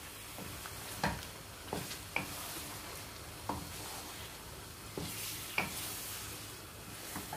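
Aubergine slices sizzling in hot oil in a non-stick wok over high heat, stirred with a wooden spatula that scrapes and knocks against the pan at irregular intervals, about once a second.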